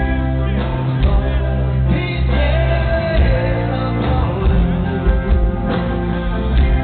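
Rock band playing live: a man singing lead over electric guitar and bass guitar.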